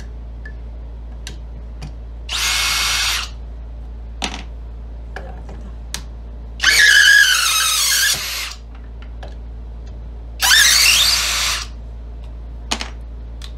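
Skil 20V brushless cordless drill/driver running in three short bursts, driving a 3-inch screw into a wooden log. The middle and longest burst wavers and drops in pitch as the motor loads. A few light clicks fall between the bursts.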